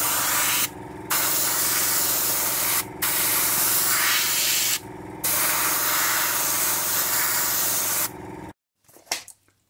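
Airbrush spraying a base coat of paint with a steady hiss. The trigger is released three times, briefly each time, while the compressor's steady hum runs on beneath. Both stop a little over eight seconds in.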